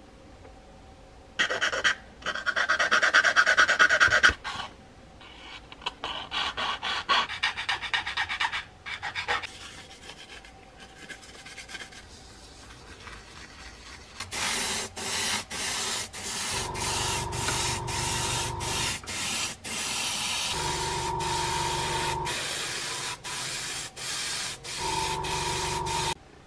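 Abrasive pad rubbed back and forth over a painted plastic model truck panel, in runs of quick rasping strokes. It starts with a loud run, then a softer one, then long, loud rubbing through the second half. Three times in that last stretch a steady hum comes in briefly.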